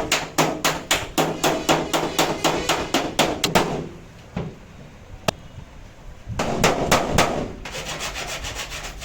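Hand sanding on a car body panel: sandpaper rubbed back and forth in rhythmic scraping strokes, about four a second. The strokes pause with a single sharp click about halfway through, then resume, quicker and finer near the end.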